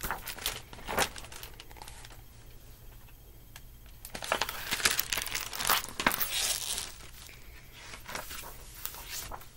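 Paper rustling and crinkling as a hardcover picture book is handled and its pages turned, in bursts near the start and again from about four to seven seconds in.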